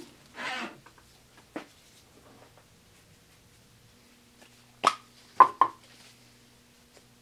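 A few light clicks and knocks from a spray adhesive can being handled and set down on a plywood workbench. The sharpest come in a quick cluster about five seconds in, over a faint steady hum.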